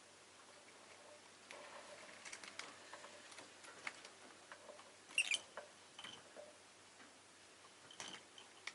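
Rosy-faced lovebird making soft clicks and scratchy ticks, with a few brief high chirps; the loudest chirp comes a little after halfway.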